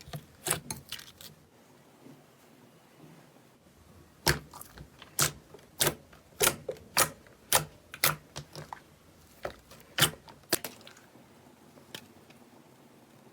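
Slime being squeezed and pressed, giving a run of sharp pops and clicks about twice a second from about four seconds in to about ten seconds in.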